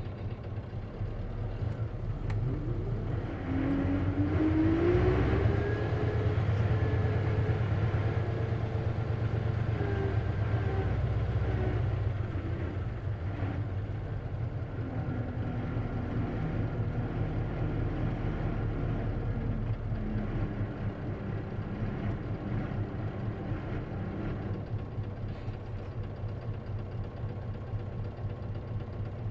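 Diesel engine of an Isuzu KC-LV380N city bus with a manual gearbox, heard from inside the bus. It pulls away from idle with a rising pitch about three seconds in, then runs at steadier pitches through gear changes, and settles lower toward idle later on.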